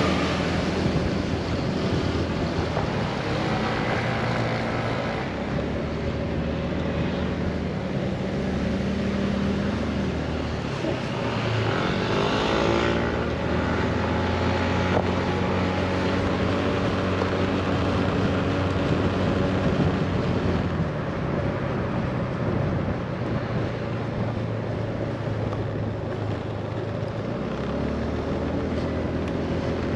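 Motor scooter engine running while riding, its pitch stepping up and down several times as speed changes, over a steady rush of road and wind noise. There is a brief louder swell about twelve seconds in.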